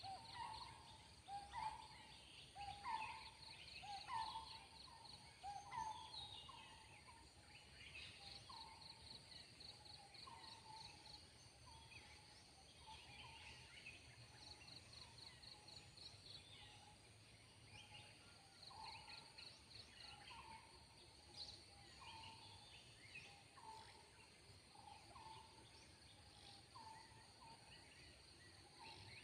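Faint forest ambience: a bird repeats a short rising call about once a second, over an insect's pulsing high trill that comes and goes and scattered small chirps.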